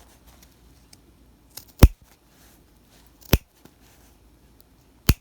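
Tailor point scissors snipping through fabric layers three times, about a second and a half apart, the first snip the loudest: clipping into the corner of a welt pocket opening right up to the stitching.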